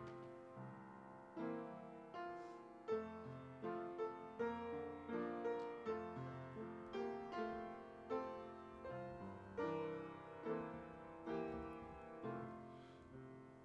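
Piano playing a gentle, slow piece: single notes and chords struck about twice a second, each left to ring and die away, with the last chord fading out near the end.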